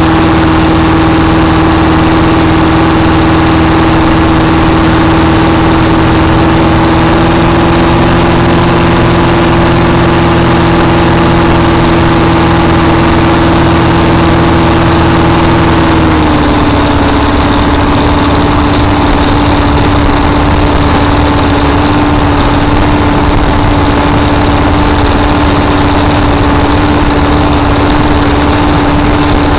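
Supercharged Ford engine in a flat-bottom boat running steadily at low speed, with a strong steady hum over the exhaust. Its pitch rises slightly about eight seconds in and drops a step about sixteen seconds in.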